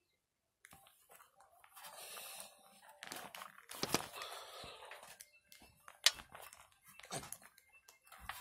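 Irregular scraping and rustling with sharp clicks as a paper clip is worked through the holes of a small plastic sonic screwdriver power unit to push out its dead battery; the loudest click comes about six seconds in.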